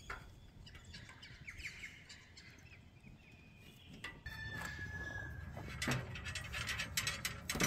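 Small birds chirping, with one held whistled note midway, then a quick run of footsteps crunching on dry dirt and leaves near the end.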